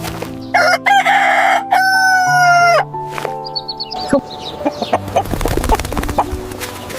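A rooster crowing once, a long call that drops in pitch at its end, over background music with held notes. Shorter bird calls and a run of light clicks follow.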